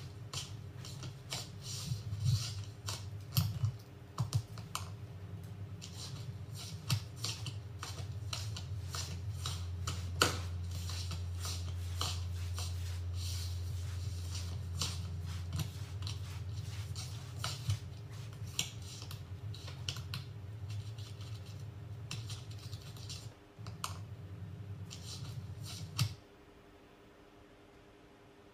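Irregular light clicks and taps, many per second at times, over a low steady hum; both cut off suddenly about two seconds before the end.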